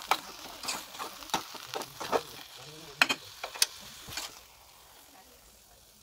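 A spoon scraping and knocking against the side of an aluminium pot while cooked vermicelli is stirred: a string of sharp knocks for about four seconds, then it goes quieter.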